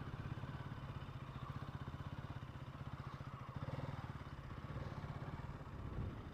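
Motorcycle engine idling, heard faintly as a steady, fast, even low pulse.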